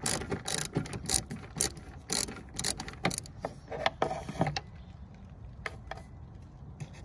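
Hand screwdriver working a screw out of a metal floor bracket and scraping through dirt and debris: a run of irregular clicks and scrapes for about four and a half seconds, then only an odd click.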